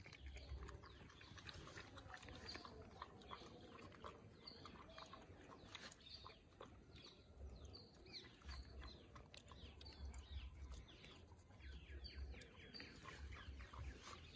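Faint wet lapping of puppies drinking milk from a tray and a bowl on the ground, with birds chirping in the background.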